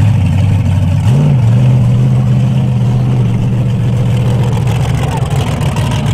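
Rock racing buggy's engine idling, with one short rev about a second in before settling back to a steady idle.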